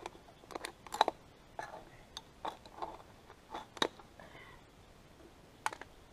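Thin aluminium drink cans being bent and handled with a knife: irregular sharp metallic crinkles and clicks, the loudest about a second in and again near four seconds.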